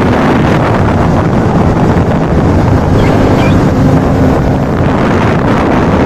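Bajaj Pulsar NS200's single-cylinder engine running while the motorcycle is ridden at speed, with heavy wind noise on the microphone.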